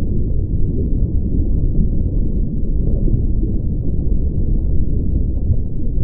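A steady, muffled low rumble with nothing high in it and no distinct events, even throughout.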